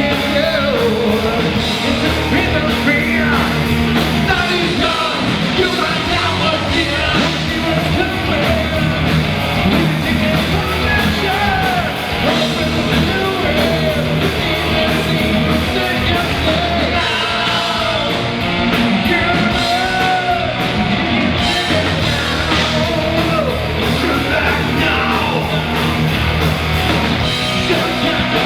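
Rock band playing live, with a lead vocal sung and shouted over the band.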